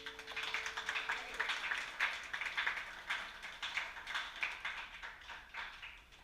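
Small audience applauding, the clapping thinning out near the end, while the last plucked chord of the song dies away in the first second.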